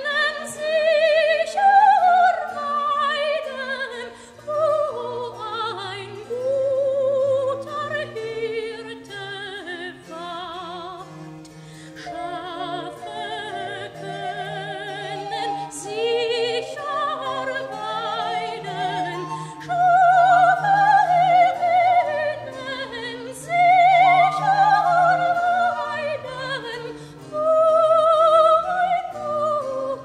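Baroque cantata aria: a singer with wide vibrato sings flowing, ornamented lines over an orchestral bass line, with quieter stretches between phrases.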